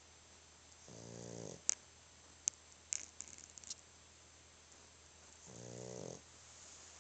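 A sleeping dog snoring: two long, pitched snores about four and a half seconds apart, each lasting under a second. Between them come a few sharp clicks, louder than the snores.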